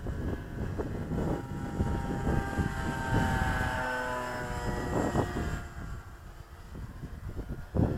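Electric RC model plane, a Cessna 182 with a stock brushless motor on a 3-cell battery, flying by with a steady propeller and motor whine that grows louder toward the middle and then drops slightly in pitch as it passes. Wind buffets the microphone underneath.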